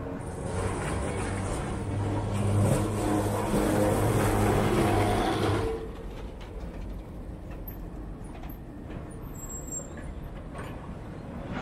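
Vintage tram passing close by: a steady low motor hum and rumble that drops off sharply about six seconds in, leaving quieter street noise.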